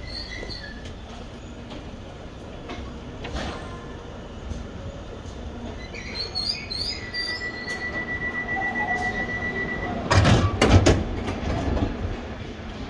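London Underground tube train at the platform: a rapid run of high door-closing warning beeps for about three seconds, then the sliding passenger doors shut with loud knocks about ten seconds in.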